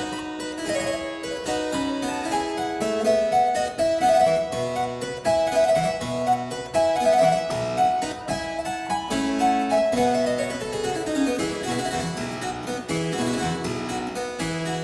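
Harpsichord music: a quick run of plucked notes over a moving bass line.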